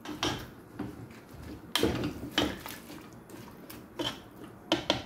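A plastic spatula stirring chunks of yam in water in a pot, with irregular knocks and short scrapes against the pot.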